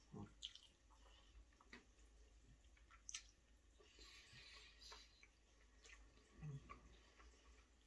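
Faint mouth sounds of a man chewing buckwheat porridge and meatball with his mouth closed: small wet clicks and smacks, with a brief low hum about six and a half seconds in.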